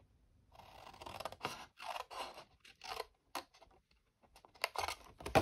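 Scissors cutting card stock, snipping off the corners of a scored square: a run of short crunchy snips about every half second, a brief pause, then more snips near the end.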